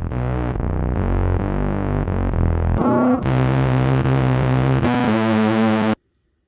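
Synthesizer music with sustained, distorted chords that change every half second or so, cutting off suddenly about six seconds in.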